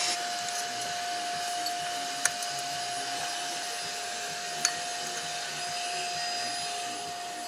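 A steady whirring hum with a high hiss and one held tone, like a small motor running, that stops near the end. Two sharp clicks come about two and a half seconds apart.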